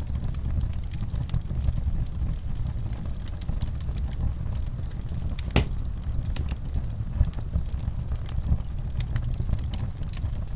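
Wood fire burning in a fireplace: a steady low rumble of the flames with frequent small crackles and one louder pop about halfway through.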